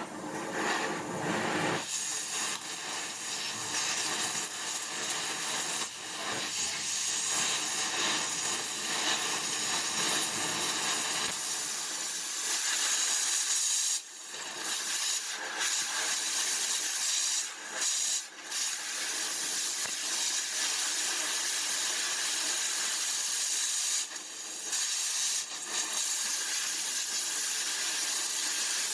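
A steady hiss that cuts out briefly a few times.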